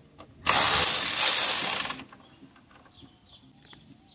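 Ratchet wrench running for about a second and a half, spinning out a 10 mm bolt during water pump removal.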